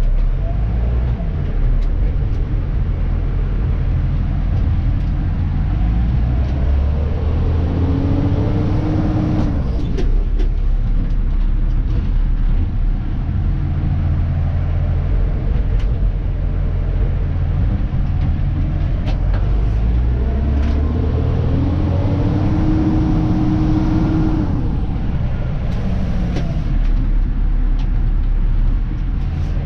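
Dennis Eagle Elite 2 refuse truck's diesel engine and drivetrain heard from the cab while driving, twice pulling away with the engine note rising and then dropping back. There are short air-brake hisses between pulls.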